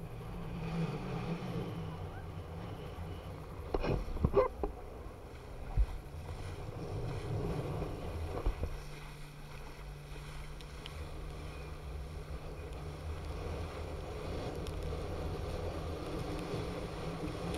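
Wind buffeting an action camera's microphone and water rushing and spraying around an inflatable banana boat towed at speed. There are a few sharp knocks about four seconds in and one near six seconds, and a steady low hum through the middle.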